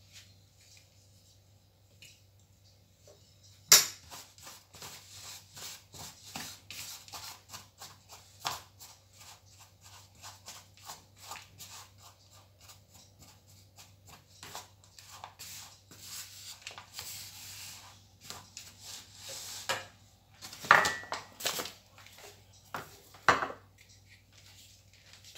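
Kitchen items being handled on a counter: a sharp knock about four seconds in, then a long run of small clicks and light clatter, and two louder knocks near the end.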